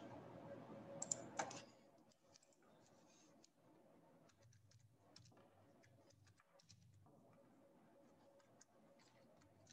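Near silence broken by a few faint computer mouse clicks about a second in, then very faint keyboard typing.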